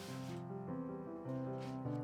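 Background music with a piano-like melody. A rubbing noise, like scrubbing, stops about half a second in.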